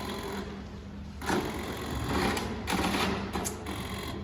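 Scooter's electric starter motor whirring in short cranking attempts, about a second in and again near three seconds, without the engine catching. The owner puts the non-start down to a poorly charged battery.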